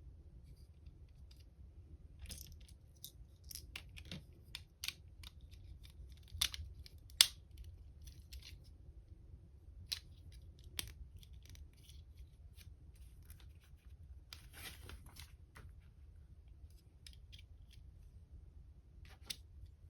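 Hands unboxing and handling a LEGO set: scattered sharp clicks and taps of plastic pieces and packaging, with a short rustle of packaging about three-quarters of the way through.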